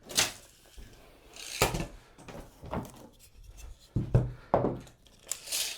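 Hands and measuring tools working on a plywood layout: scattered rubbing and scraping, two sharp clicks about four seconds in, and a short scrape near the end.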